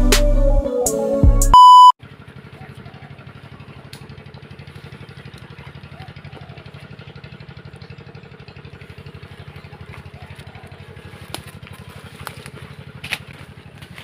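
Electronic intro music that cuts off about a second and a half in with a short high beep. Then comes a steady, quieter low droning hum with a fast even pulse, from an engine-like source, with a few faint snaps near the end.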